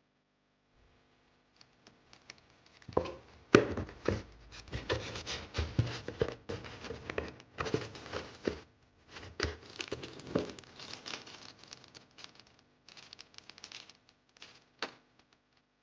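Hands handling objects and packaging: irregular rustling and crinkling with clicks and knocks, starting about three seconds in and trailing off near the end.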